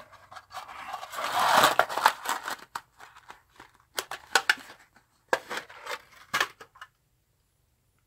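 Rummaging in a tin of small brass SMA coaxial adapters: rustling and scraping for about two seconds, then a run of sharp clicks and taps as an adapter is picked out and handled, stopping about a second before the end.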